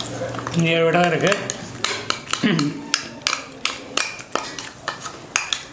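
A spoon scraping and tapping chutney out of a plastic cup: a run of sharp, irregular clicks and knocks. A short hum of voice comes about a second in.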